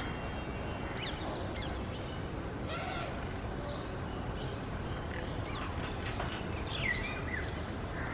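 Birds chirping outdoors: short calls and quick up-and-down chirps scattered through, over a steady low background rumble.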